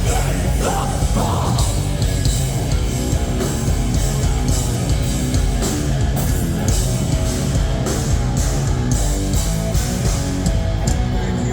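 Live hard rock band playing at full volume: distorted electric guitars, bass and drums with crashing cymbals. The cymbal hits die away near the end.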